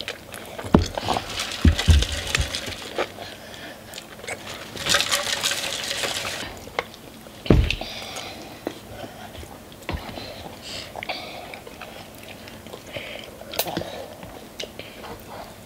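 Eating instant noodles: forks clicking and scraping in paper ramen cups, with wet chewing and slurping. There are a few dull knocks on the tabletop, the loudest about seven and a half seconds in, and a hissing rustle around five to six seconds in.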